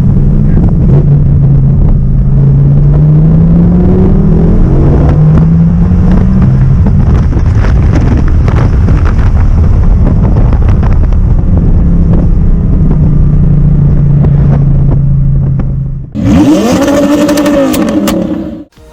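Audi R8's naturally aspirated V10 engine pulling under acceleration, its note climbing in pitch over the first few seconds, then holding a steady drone. About three-quarters of the way through it changes abruptly to a louder rev that rises and falls in pitch, then cuts off suddenly near the end.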